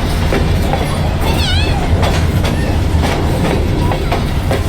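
Train rolling past close by: a steady heavy rumble with the clickety-clack of its wheels passing over the rail joints.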